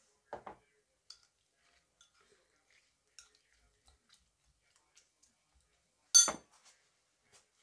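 Metal spoon stirring sliced carrot and radish in a ceramic bowl: faint scattered taps and scrapes, then one sharp ringing clink of spoon against bowl about six seconds in.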